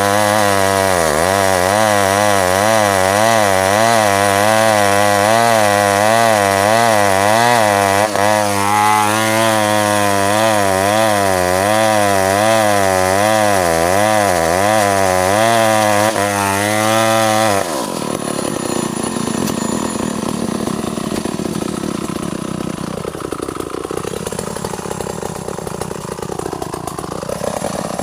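Two-stroke chainsaw running at high revs while cutting ironwood, its pitch wavering up and down as the chain bites. About two-thirds of the way through it drops to a lower, quieter idle, then starts revving up again near the end.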